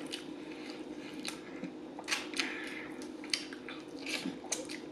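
Close-up eating sounds from gnawing and chewing a barbecued rib: scattered wet mouth clicks and smacks, a cluster of them about two seconds in. A faint steady hum runs underneath.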